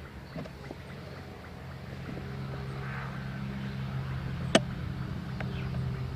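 Low, steady drone of a distant vehicle engine that swells about two seconds in, with one sharp click a little past the middle.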